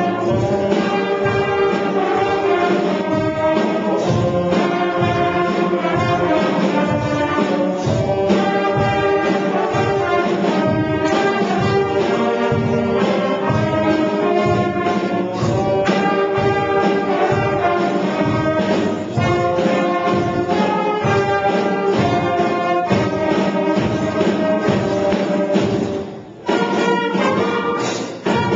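Student concert band playing: flutes, clarinets and trumpets together over a steady beat, with a short break near the end before the band comes back in.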